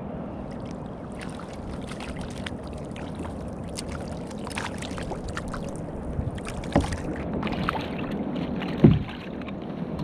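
Water lapping and splashing around a kayak as a hooked fish is reeled alongside and lifted aboard, with scattered small clicks and splashes, a sharp knock about seven seconds in and a louder thump near the end.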